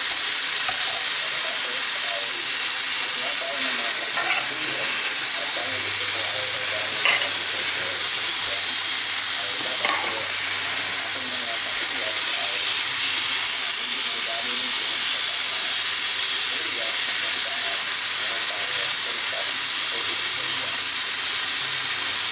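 Food sizzling steadily in a hot frying pan, with a few light taps of the stirring utensil against the pan.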